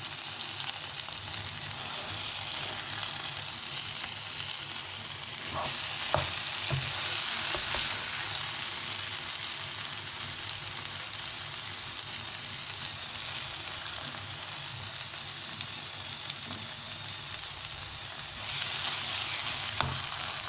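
Hot oil sizzling steadily as food fries in a pan, swelling louder twice, with a few light knocks about six seconds in.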